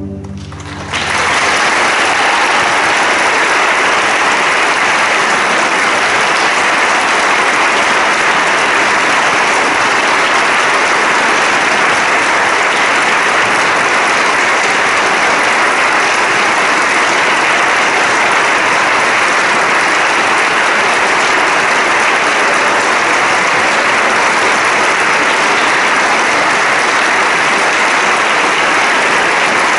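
An orchestra's last chord dies away in the first second, then a large audience applauds steadily.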